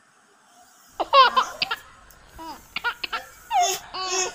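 A young girl giggling in short high-pitched bursts, starting about a second in.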